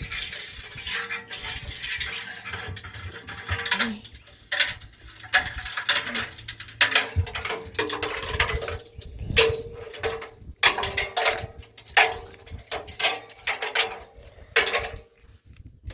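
Irregular clattering, clicking and knocking of small hard objects being handled, with a faint steady hum coming and going.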